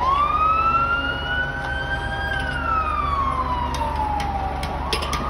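Emergency vehicle siren on a wail: the pitch rises for about two seconds, falls slowly for about two more, and begins to rise again near the end, over a steady low rumble.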